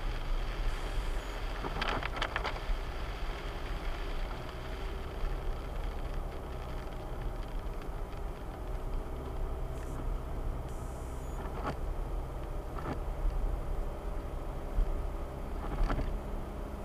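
Car driving: a steady low engine and road rumble, with a few short sharp rattles or knocks, a cluster of them about two seconds in.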